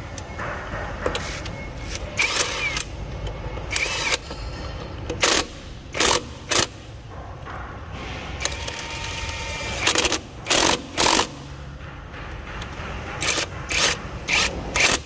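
Cordless 21 V KONSUN KX73001 impact wrench hammering in about a dozen short bursts on a truck wheel's hub bolts, breaking them loose one after another.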